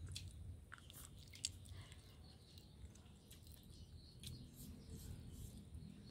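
Faint chewing of rice and stir-fried water spinach eaten by hand, with scattered soft mouth clicks.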